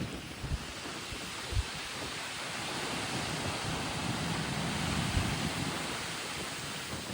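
Strong thunderstorm wind gusts rushing and buffeting the phone's microphone, swelling in the middle, with a few low thumps of the gusts hitting the microphone in the first two seconds.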